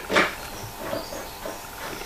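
Metal clamps being handled and fitted to the edge of a worktop: one sharp metallic clank just after the start, then small faint knocks and clicks.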